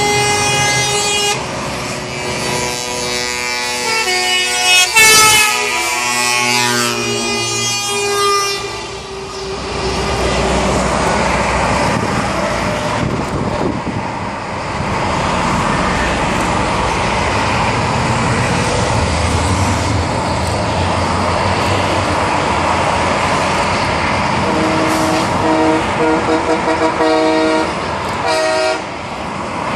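Trucks in a convoy sounding air horns as they pass below: several horns blare together for the first nine seconds, some sliding in pitch, then steady traffic and tyre noise. Near the end comes a string of short horn toots.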